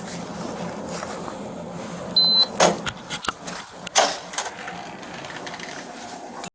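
A steady low hum, then a short, high electronic beep, followed by a quick run of sharp clicks and knocks. The sound cuts off abruptly at the end.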